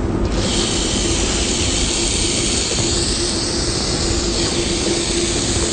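Portable grill hissing steadily as ham cooks on it; the hiss starts abruptly.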